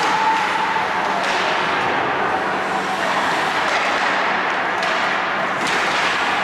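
Ice hockey game sounds: a steady hiss of skates on ice with a few sharp knocks from sticks and puck.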